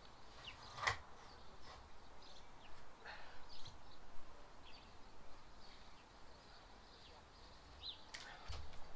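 Faint scraping and rustling of a knife cutting sheet vinyl flooring around a paper template, with a sharp click about a second in. A few short bird chirps come through now and then.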